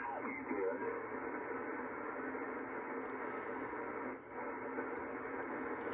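HF transceiver receiver audio on the 80-meter band in sideband mode: a steady rush of band noise and static with no strong signals, briefly dropping about four seconds in.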